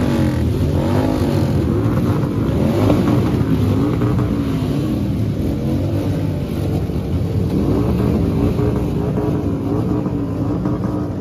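Several cruiser motorcycles revving their engines over and over, the pitch rising and falling about once a second with the revs overlapping.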